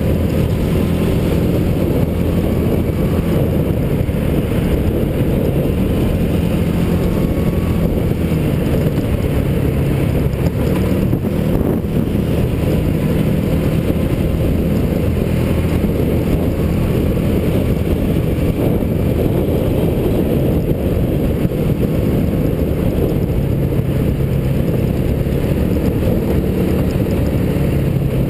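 Small engine of a mini hotrod running steadily at cruising speed, heard on board, with a constant low drone of engine, road and wind noise and no big revs.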